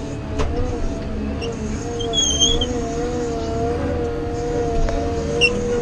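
Heavy earthmoving machine running steadily, heard from inside its cab: a low engine rumble under a steady, slightly wavering whine, with a few short high squeaks.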